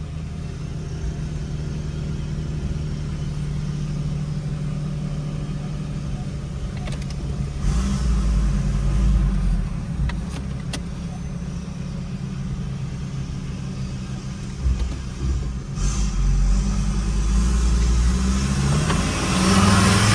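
Ford Ranger 3.2 five-cylinder turbo diesel driving with its electronic exhaust cutout open on a new downpipe, giving a loud, open exhaust note. The engine surges under acceleration about 7 s in, again about 16 s in, and once more near the end.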